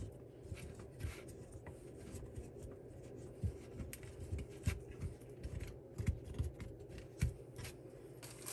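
Hands working a woven cotton potholder off the pegs of a potholder loom: scattered light clicks and soft rustles, with a few soft low knocks as the loom and crochet hook shift.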